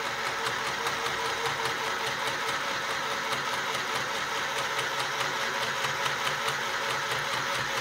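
Akiara mini electric sewing machine running steadily and stitching through cloth, its small motor driving the needle in a fast, even rhythm of strokes.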